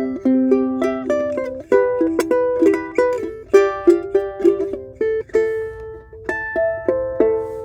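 Martin 3M Ditson dreadnought-body ukulele strung with Aquila B-Black strings, played solo: a melody of single plucked notes and chords, each ringing on into the next.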